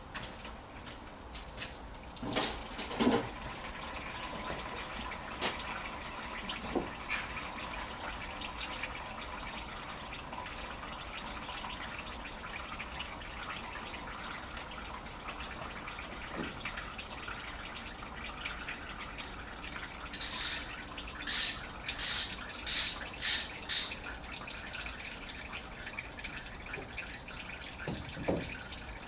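Old engine oil draining from the open sump drain plug of a 2008 Honda Civic 1.8 in a thin stream, splashing steadily into an oil drain pan. A run of short, sharp noises comes about two-thirds of the way through.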